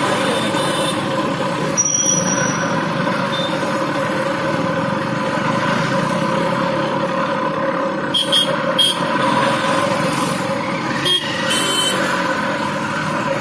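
Busy street traffic: motor vehicle engines running steadily as vehicles and motorcycles pass, with a few short high tones.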